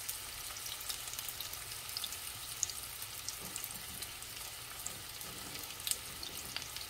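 Two beef chapli kebabs shallow-frying in a little hot oil in a frying pan: a steady sizzling hiss with scattered small pops and crackles.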